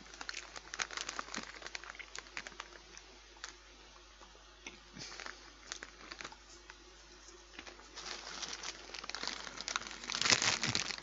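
Faint crunching of potato crisps being chewed, a scatter of small cracks. From about eight seconds in a crisp packet crinkles as it is picked up and handled, loudest near the end.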